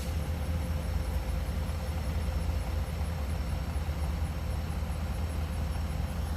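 Fire apparatus engine idling with a steady low rumble.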